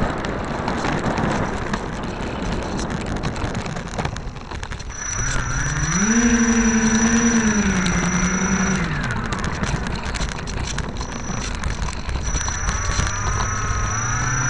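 Electric motors and propellers of a radio-control P-38 model, heard from a camera on the plane while it taxis on asphalt. At first there is only a rolling, windy rumble. About five seconds in the motors' hum rises in pitch with a thin high whine over it, holds, and falls away around nine seconds, then rises again near the end.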